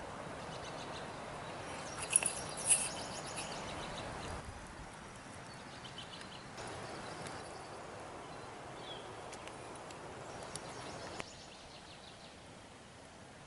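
Outdoor background ambience: a steady hiss with a few faint bird chirps, and a couple of brief sharp sounds about two seconds in.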